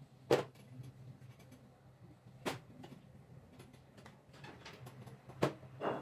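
A plastic hair claw clip and hands handling hair as it is sectioned: a few sharp plastic clicks, one soon after the start, one about halfway and two close together near the end, over a faint low hum.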